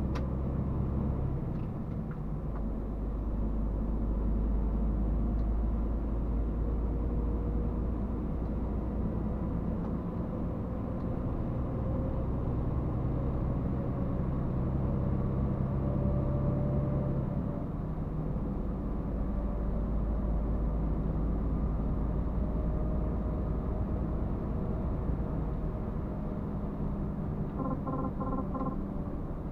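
Truck engine and road noise while driving: a steady low rumble whose engine note shifts twice, once early on and once past the middle. A brief series of short beeps sounds near the end.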